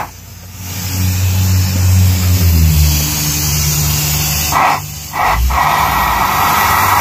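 Flush being blown out through the A/C lines: two short hissing blasts, then a long steady hiss of about three seconds, clearing debris and black oil left by a burnt-up compressor. A low mechanical drone runs underneath, its pitch shifting about halfway through.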